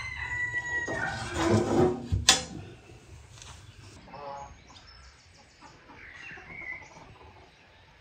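The metal oven door of a wood-burning stove shutting with a sharp clank about two seconds in. After it come quieter farmyard bird calls: clucking and faint high chirps.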